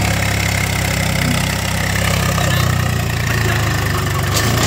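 Diesel tractor engine running steadily at low speed, a deep even engine note.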